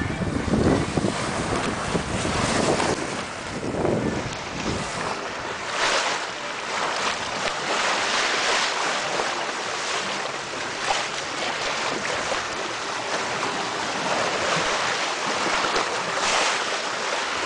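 Water rushing and splashing along the hull of a sailing yacht under way, swelling and easing every few seconds as the bow meets the waves. Wind rumbles on the microphone, heaviest in the first few seconds.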